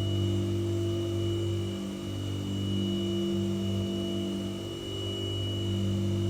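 White noise sound machine running: a steady low hum with several overtones and a faint high whine over a soft even hiss.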